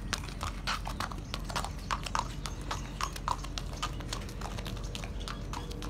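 American Quarter Horse mare walking under a rider, her hooves clip-clopping on concrete in a quick, uneven run of hoof strikes.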